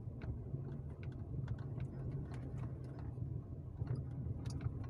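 Inside the cabin of a 2015 Nissan Sentra driving over an uneven street: a steady low rumble of road and engine with many scattered light creaks and ticks, the leather seats creaking over the bumps.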